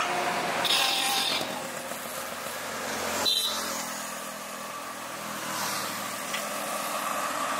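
Steady outdoor background noise resembling passing road traffic, which changes abruptly about three seconds in.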